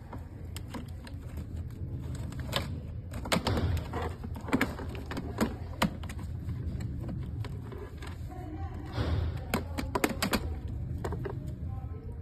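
Irregular small clicks and taps, as of hand tools and small parts being handled during a repair, over a low steady hum.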